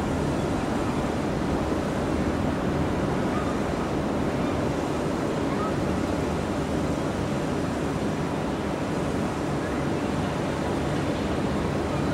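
Steady rushing airport ambience: the even rumble of distant jet engines on taxiing airliners, mixed with wind on the microphone.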